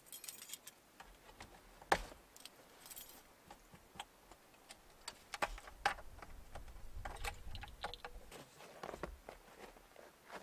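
Scattered light clicks and taps of hands and a small tool working on a chainsaw on a wooden workbench; the saw's engine is not running.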